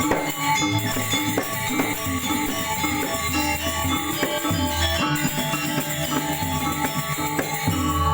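Balinese gamelan ensemble playing a rhythmic piece: struck bronze metallophones ringing over deep, recurring gong tones.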